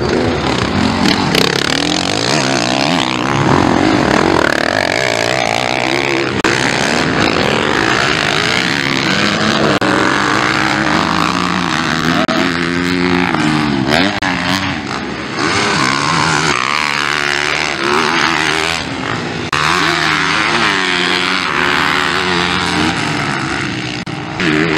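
Several motocross dirt bikes racing on a dirt track, their engines revving up and falling away again and again as they accelerate out of and brake into the turns.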